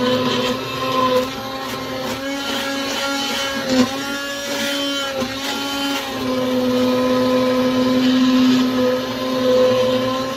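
Hand-held immersion blender running steadily, puréeing cooked leeks for a cream soup; its motor whine wavers slightly in pitch a few times.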